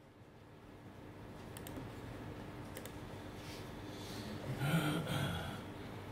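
Quiet room tone with a steady hum, a few faint clicks, and a brief low voice-like sound about five seconds in.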